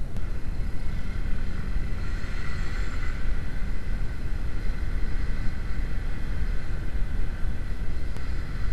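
Wind rumbling on an action-camera microphone on a moving motorcycle, with the Honda CB150R's single-cylinder engine running steadily underneath.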